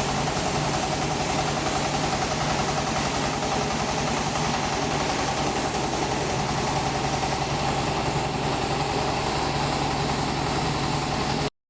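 Mini excavator's engine running steadily at a constant speed; the sound cuts off abruptly near the end.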